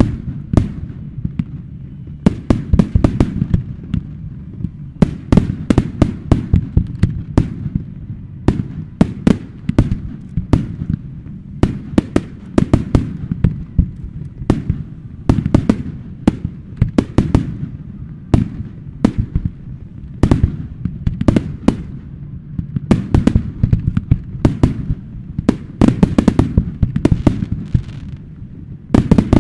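A fireworks display: a rapid, unbroken string of sharp bangs, several a second, over a low rolling rumble from the bursts and their echoes.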